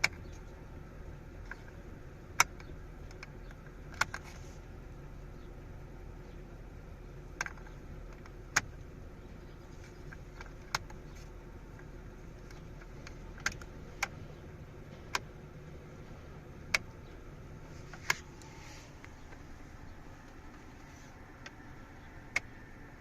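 About a dozen single sharp clicks, spaced irregularly a second or a few seconds apart, over a faint steady low hum.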